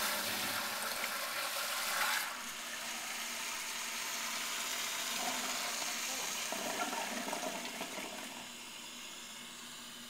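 Sloan Flushmate pressure-assist toilet flushing: the loud rush of the pressurized discharge cuts off about two seconds in. Then comes a steady hiss of water refilling, which drops quieter near the end.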